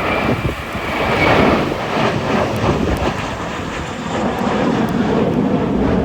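Airbus A321-200 jet airliner at takeoff power, a loud rushing noise, with strong wind buffeting the microphone. A faint high whine fades out about a second and a half in.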